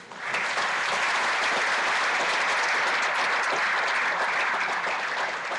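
Audience applauding, starting abruptly and holding steady, easing off slightly near the end.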